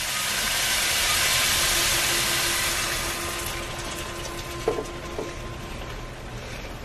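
Diced ham and vegetables sizzling in a hot skillet, a steady hiss that swells over the first couple of seconds and then slowly eases as beaten eggs are poured into the pan.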